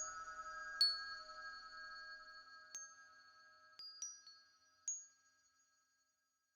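Handmade chime-like percussion: about five high, bell-like pings struck singly, each ringing on, over a held lower chord that slowly dies away. The ringing fades to near silence shortly before the end.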